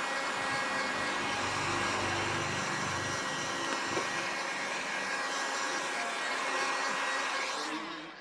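Handheld electric heat gun running steadily, its fan blowing hot air with a faint whine, then winding down near the end.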